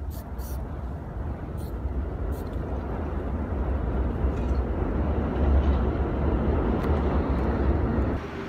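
Steady low rumble of outdoor city ambience, slowly getting louder, with a few brief hisses in the first half second.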